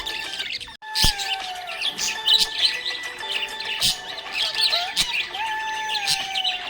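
Budgies chirping and chattering rapidly together over background music with long held notes. The sound cuts out briefly just under a second in, then resumes.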